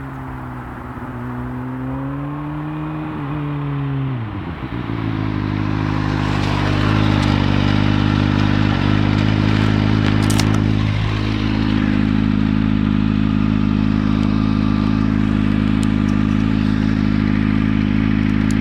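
Kawasaki ZX-6R's stock-exhaust inline-four engine running, its pitch wavering and dipping about four seconds in, then holding steady and louder for the rest.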